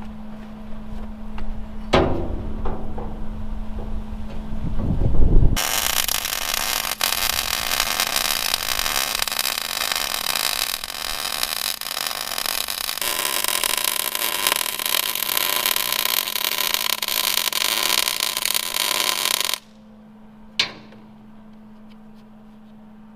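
Wire-feed welder arc crackling and sizzling steadily through one long weld of about fourteen seconds, starting about five seconds in and cutting off suddenly. A steady hum runs underneath, with a knock before the weld and a sharp click after it.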